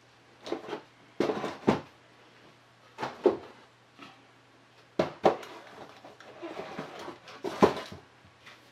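Handling noise: a series of knocks and clunks, about six, as a paint-covered board is shifted and tilted in gloved hands.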